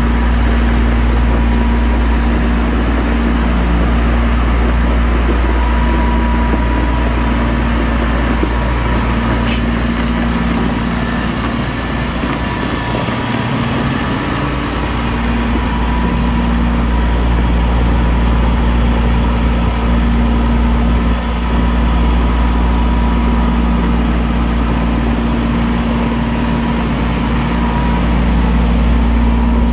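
A vehicle engine running steadily with a low rumble and a constant hum, and one sharp click about ten seconds in.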